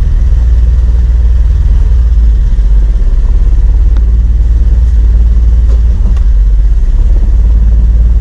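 Kawasaki Mule 4010 utility vehicle's engine running steadily and loudly as it drives along a dirt trail, with a few faint clicks near the middle.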